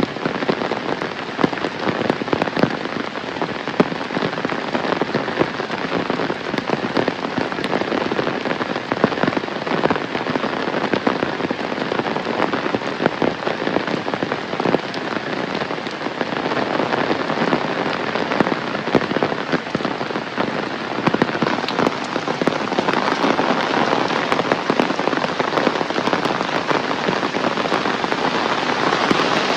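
Heavy rain falling steadily, a dense hiss full of individual drops ticking on surfaces, growing slightly heavier about two-thirds of the way through.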